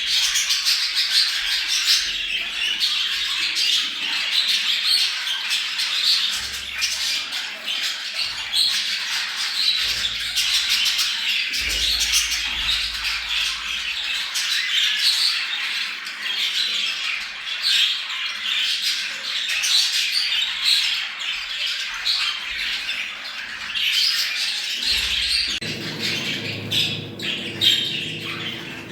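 A flock of budgerigars chattering and squawking without a break, many short overlapping calls. This is the budgie breeding chatter played to bring pet budgies into breeding condition. A low steady hum joins near the end.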